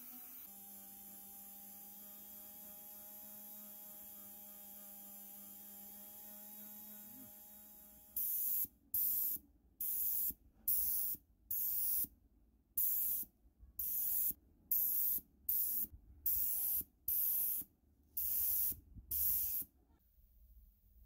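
An aerosol spray-paint can spraying glossy black paint in about a dozen short bursts, roughly one a second. Before that, a faint steady hum from a rotary tool sanding the part.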